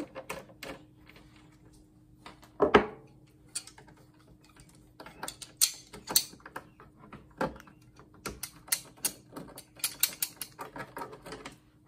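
Irregular clicks, taps and knocks of hand tools on the plastic and metal of an old monitor being taken apart, with one sharper knock about three seconds in and a quick run of clicks near the end.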